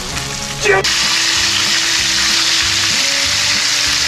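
Tautog fillets sizzling as they fry in a pan, a dense steady hiss that jumps louder after a brief sharp sound about a second in.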